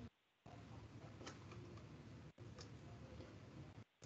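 Near silence: faint room tone over a video call, with a couple of faint clicks and brief moments where the audio drops out entirely.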